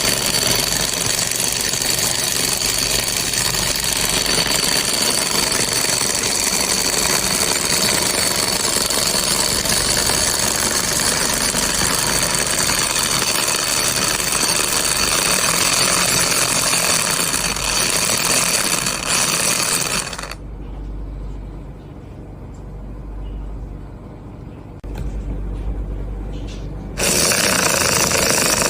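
Miniature engine model running with a fast mechanical rattle and a steady high whine. About 20 seconds in, the rattle and whine drop away to a quieter low hum for several seconds, then return near the end.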